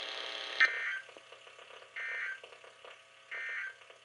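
Three short bursts of screechy digital data tones from a NOAA Weather Radio broadcast, evenly spaced about a second apart, over faint radio hiss. These are the Emergency Alert System SAME End-of-Message bursts that close the weekly test.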